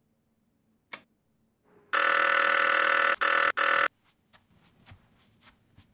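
Electric doorbell ringing loudly for about two seconds, one steady buzzing ring broken by two brief gaps near the end, with a single click shortly before it. Faint scattered taps follow.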